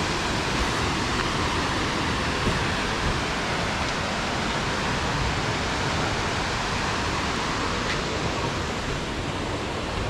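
Steady, even rush of water from Ramboda Falls, a 109 m waterfall.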